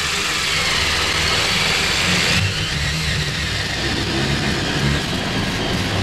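Cordless drill boring a hole through a wooden floorboard, its motor running steadily under load without a break.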